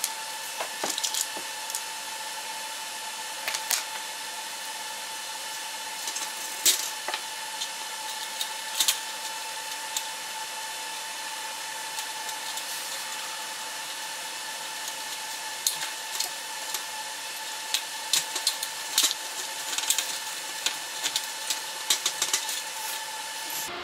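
Hands working electrical wires on a fluorescent light fixture, cutting and handling them: scattered sharp clicks and snips, more frequent near the end, over a steady high-pitched hum.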